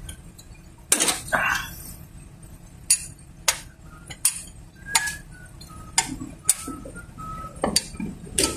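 Scattered metallic clinks and taps of hand tools and parts against the top of a Toyota 7K engine during hands-on work under the hood, roughly one sharp clink a second.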